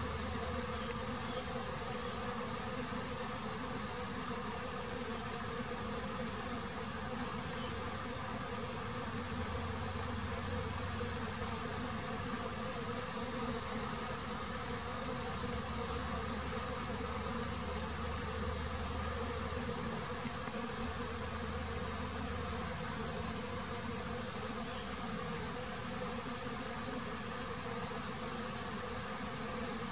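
Honeybees buzzing steadily in large numbers: a dense, unbroken hum.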